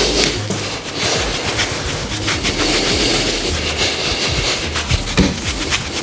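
Background music with a low bass line that shifts from note to note under a busy clicking beat.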